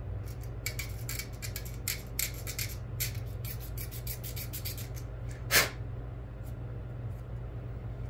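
Hobby knife blade scraping paint off a plastic model-kit tire half in quick short strokes, with one longer, louder scrape about five and a half seconds in; the paint is being cleared so the tire halves glue well. A steady low hum runs underneath.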